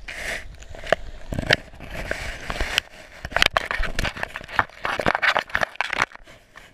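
Irregular scraping and sharp clicks on an underwater camera as a crayfish's claws grab and scratch at it, in dense clusters through the middle and latter part.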